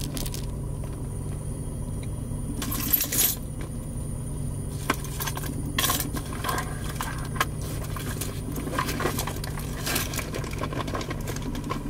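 Car cabin noise: a steady low hum of the moving car, with scattered light metallic clinks and jingles, the clearest about three and six seconds in.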